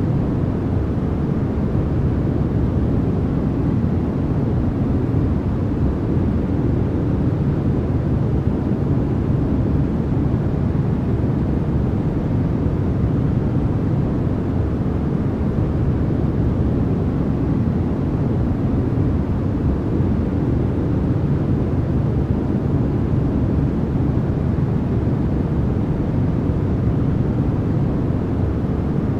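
Steady white noise, even and unbroken, with most of its energy low down, so it sounds like a deep rush rather than a bright hiss.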